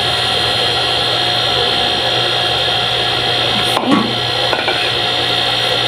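A steady mechanical hum with a high whine over it, unchanging throughout, and a single brief knock about four seconds in.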